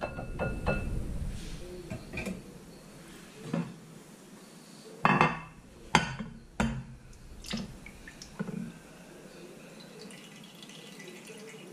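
A wire whisk clinks rapidly against a glass mixing bowl, then glassware knocks a few times on the stone countertop as a glass baking dish is handled and set down. Near the end, egg mixture is poured faintly into the dish.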